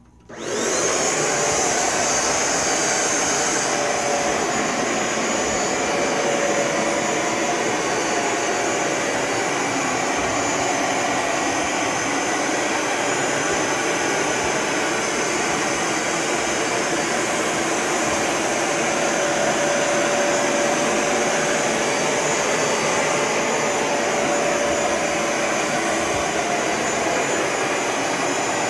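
Bissell ProHeat 2X Revolution Pet Pro upright carpet cleaner switched on just after the start, its motor coming up to speed within a second, then running steadily as it cleans the carpet.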